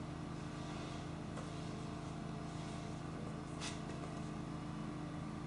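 A steady low mechanical hum made of several held tones, with one light click about three and a half seconds in.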